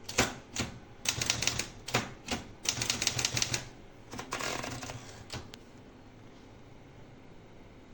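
Keys of an Olivetti Lettera 32 manual portable typewriter being typed, quick clusters of sharp clacks. After them come a longer rasping sound and a last click, and the typing stops about five and a half seconds in.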